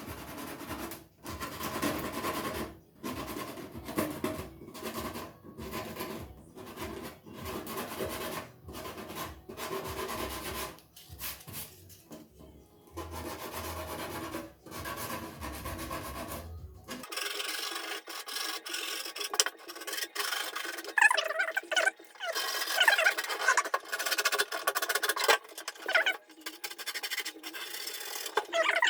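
Sandpaper rubbed by hand back and forth over the cracked plastic of a freezer drawer in short strokes, about one a second, roughing the surface before gluing. About seventeen seconds in the sound turns thinner and scratchier, with a few brief squeaks.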